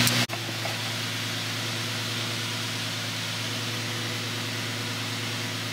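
Infiniti G37's 3.7-litre V6, fitted with long-tube intakes, idling steadily.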